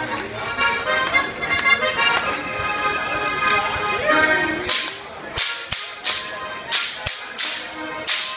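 Music plays, then about halfway through a Bavarian whip cracker (Goaßlschnalzen) starts cracking a whip in rhythm: a run of sharp cracks, two to three a second, over the fading music.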